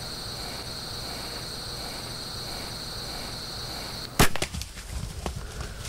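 A compound bow fires with one sharp, loud snap about four seconds in, followed by a flurry of smaller crackles and rustles in dry leaves. Before the shot a steady high-pitched hiss runs and cuts off just before it.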